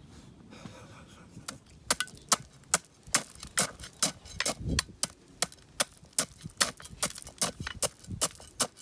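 Hand track tamping on a miniature railway: bars knocking against ballast stone and sleepers to pack the stone tight and level the track. The sharp knocks and clinks start about one and a half seconds in and come about three a second.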